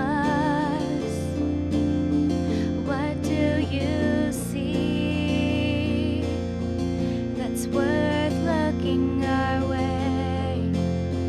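Praise band playing an instrumental passage: held keyboard chords under a melody line with a wavering, vibrato pitch.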